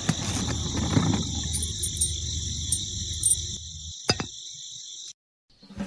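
Steady high-pitched insect chirring with a faint low hum underneath and a couple of sharp clicks about four seconds in; it all cuts off suddenly about five seconds in.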